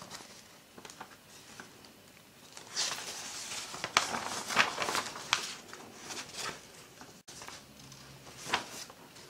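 Paper pages of a printed instruction booklet being handled and turned: a run of short, crisp rustles from about three seconds in to about six seconds, and one more near the end.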